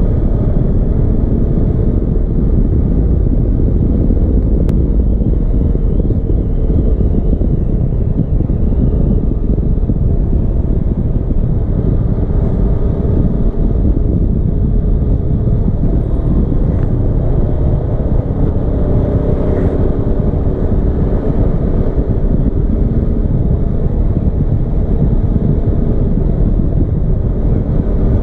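Steady, loud low rumble of wind buffeting a GoPro's microphone inside a windproof frame case while travelling on a road, mixed with the vehicle's running noise.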